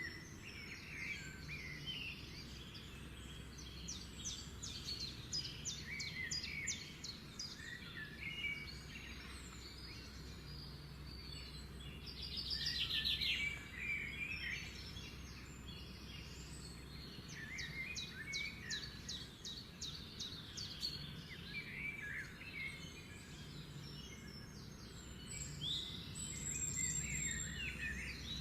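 Several birds chirping, with repeated fast trills, the loudest about halfway through, over a steady low rumble.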